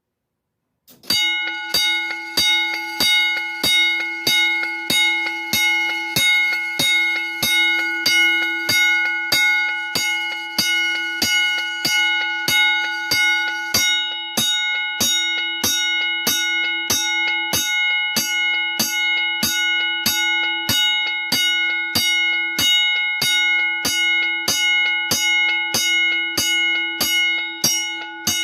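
Simplex single-stroke fire alarm bell struck in march time, about one and a half strokes a second, each stroke ringing on into the next. The strokes begin about a second in.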